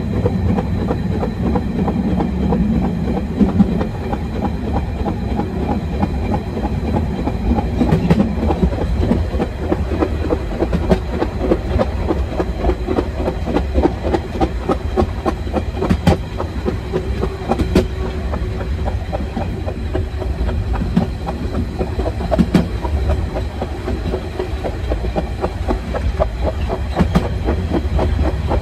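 Metre-gauge narrow-gauge train rolling along at speed: a steady rumble of wheels on rails, with scattered sharp clicks over rail joints.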